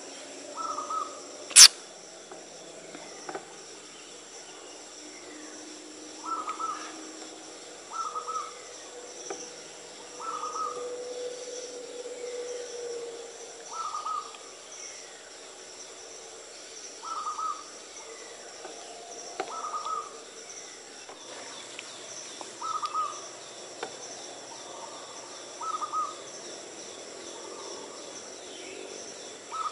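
Short bird calls repeat every two to three seconds over a steady, high-pitched insect drone. One sharp crack about a second and a half in is the loudest sound.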